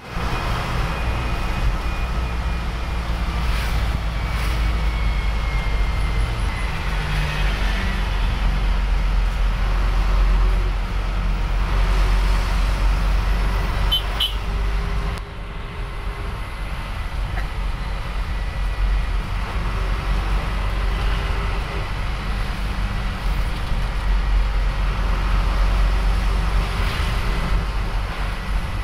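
Isuzu NQR minibus's diesel engine running with road noise, heard from inside the cabin while the bus drives along; a steady low rumble with a few faint rattles and clicks.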